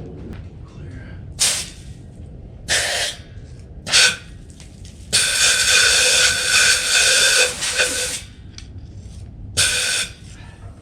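Compressed air hissing out of an air nozzle in five blasts, four short and one long one of about three seconds in the middle, drawing down the compressor's tank.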